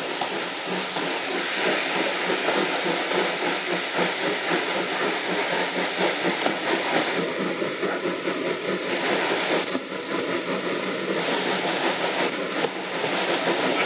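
Steam locomotive hauling a passenger train, its exhaust chuffing in rapid beats, heard from an open carriage window together with the carriage wheels running on the rails and the rush of air.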